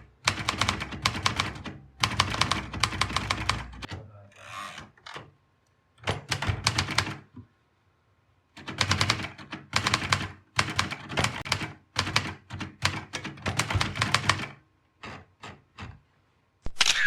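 Manual typewriter being typed on in quick runs of keystroke clacks, broken by short pauses about four and eight seconds in.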